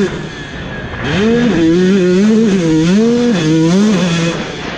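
KTM 150 SX two-stroke single-cylinder dirt bike engine being ridden hard: off the throttle and quieter for about the first second, then revving up and dropping back several times as the throttle is worked, easing off again near the end.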